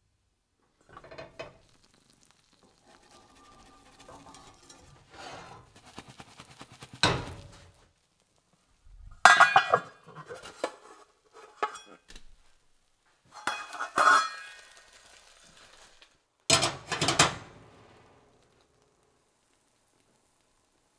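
A metal pan lid clanking and scraping against cookware and a stainless steel sink as it is handled, with several loud clatters a few seconds apart and softer rattling between them.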